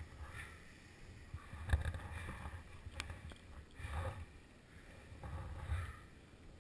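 Skis shuffling and sliding on snow in a series of swishes, with a low wind rumble on the microphone and a sharp click about three seconds in.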